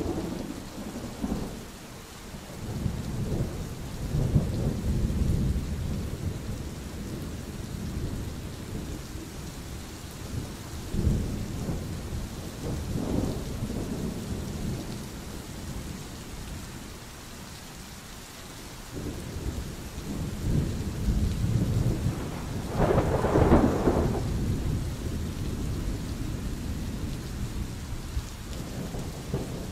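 A thunderstorm: steady rain with thunder rumbling in several swelling waves. The loudest, sharpest peal comes about three quarters of the way through.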